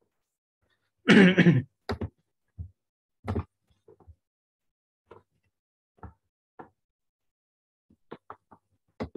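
Scattered short knocks and bumps, about a dozen, with dead silence between them, picked up through a video-call microphone. The loudest is a half-second clatter about a second in.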